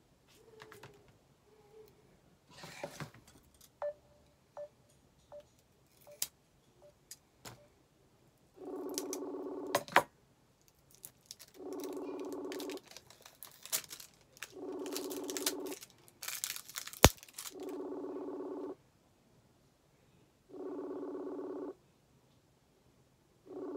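A phone's repeating electronic buzz, each about a second long, starting and stopping sharply about every three seconds, six times. Before and between the buzzes come light taps, clicks and rustling of handling, with one sharp click about two-thirds of the way in.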